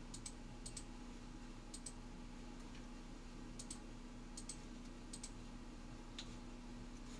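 Computer mouse clicking about six times at uneven intervals, most clicks a quick double press-and-release, as on-screen permission toggles are switched. A faint steady hum runs underneath.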